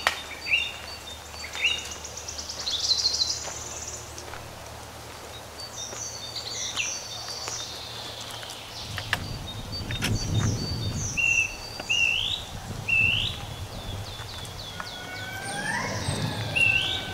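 Several songbirds chirping and calling over one another, short rising chirps repeated about once a second and a fast trill about three seconds in. A low rumble comes in around ten seconds and again near the end.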